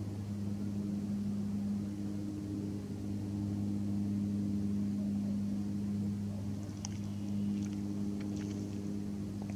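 Steady low mechanical hum at a constant pitch, like an engine running at idle. A few faint, short high chirps come near the end.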